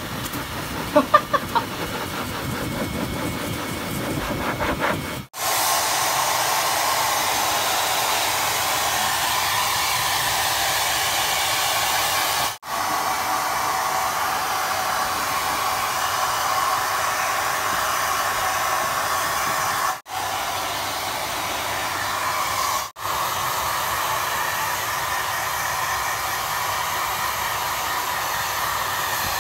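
An electric hair dryer blowing steadily on a dog's wet coat after a bath: a continuous rushing hiss that drops out briefly a few times. For the first five seconds there is a quieter, lower sound with a couple of sharp clicks about a second in.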